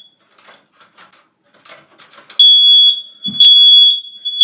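Kidde 30CUAR-V smoke and carbon monoxide alarm sounding its loud, high-pitched alarm horn during a test, starting about two and a half seconds in as long beeps with short breaks between them.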